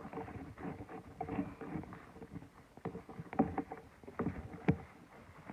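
Slime being stirred in a bowl: irregular sticky squelches and clicks as the thickening glue-and-activator mix is worked.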